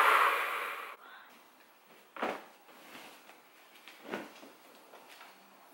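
A woman blowing out a long, forceful breath through pursed lips for about a second, followed by two soft thumps about two seconds apart.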